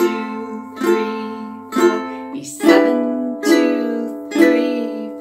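Ukulele played with single down strums, about one a second, each chord ringing and fading: four strums on an F chord, then about two and a half seconds in it changes to E7 for four more. This is a slow F to E7 chord-change drill.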